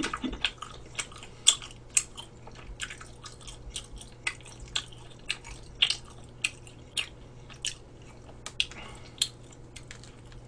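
Close-miked mouth chewing: wet smacking clicks, several a second, as a mouthful of tteokbokki (chewy rice cakes in red chili sauce) is chewed. A faint steady low hum runs underneath.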